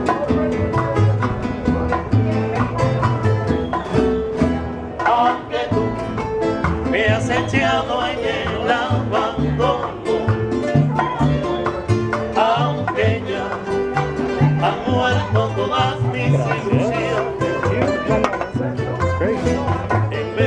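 Cuban son band playing live: a Cuban tres picking quick, bright melody notes over an acoustic guitar and bongos, with a steady moving bass line underneath.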